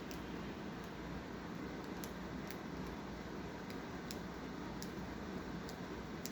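Steady background hum with faint, sharp ticks coming irregularly, roughly one a second.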